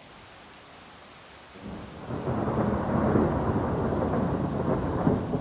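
Thunder from a lightning strike seen a few seconds earlier: light rain hiss at first, then about a second and a half in the thunder rolls in and keeps rumbling loudly.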